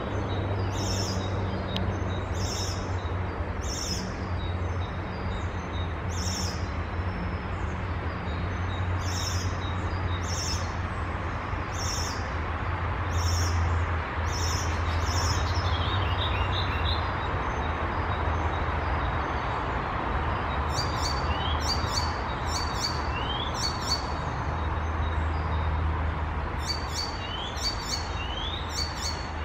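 Icterine warbler singing: short high notes repeated every second or so, then from about halfway varied phrases of rapid clicks and quick rising whistles. A steady low hum runs underneath.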